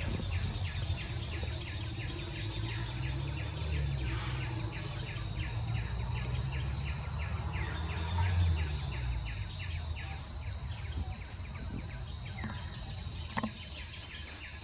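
Forest ambience: a steady high insect drone with rapid, evenly repeated chirps and scattered bird calls, over a constant low rumble.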